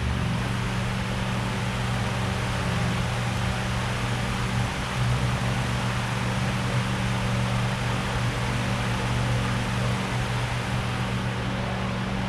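Steady mechanical hum with an even hiss, holding constant throughout, like a running fan or other shop machine.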